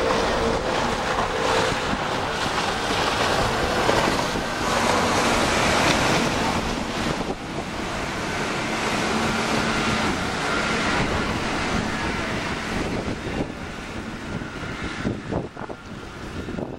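Wind blowing across the camera microphone, a steady rushing noise that turns gustier and uneven near the end.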